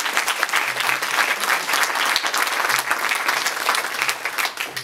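Applause from a roomful of people, a dense run of hand claps that dies away near the end.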